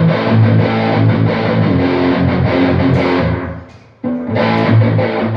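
Electric guitar played through an amp, strummed chords ringing out, with a short break about four seconds in before the playing resumes. The guitar is being played for a monitor sound check.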